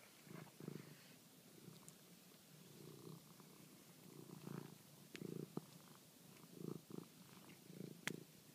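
Domestic cat purring in uneven low pulses, with a sharp click about eight seconds in.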